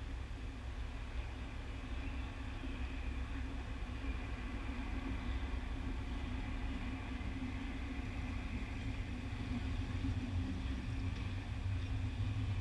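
Steady low rumble and hum of ice-arena background noise, with no distinct impacts.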